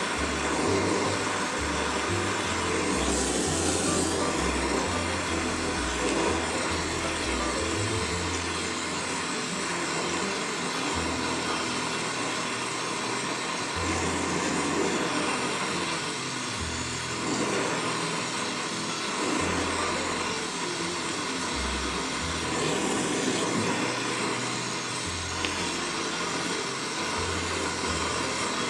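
Background music with a bass line that steps from note to note, over the steady hiss of an oxyacetylene torch brazing.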